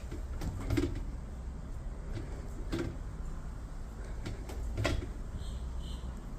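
Amana washing machine running: a steady low hum with a clunk about every two seconds.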